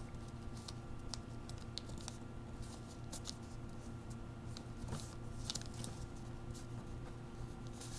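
Faint rustling and crackling of a sheet of paper being folded and creased into an origami plane, in short scattered bursts, over a steady low electrical hum.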